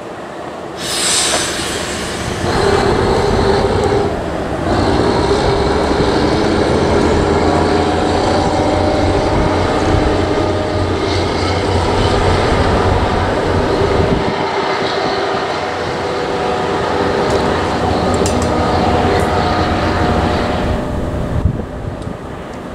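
Steel freight train running past on the rails, a continuous rumble of locomotive and wagons with a steady whine in it, dropping away near the end.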